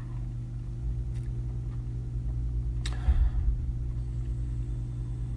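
A low steady hum in the room, with a single sharp click and a brief low thump about three seconds in.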